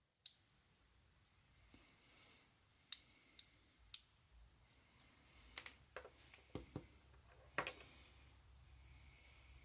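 Faint, scattered small metal clicks and taps, about ten in all and unevenly spaced, from a vintage Yale padlock's cylinder and its pin-tumbler pins and springs being worked out with a small tool.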